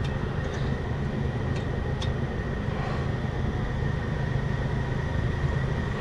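Steady low background rumble, with a few faint light metallic clicks about a second and a half and two seconds in as hand tools work at the brake caliper.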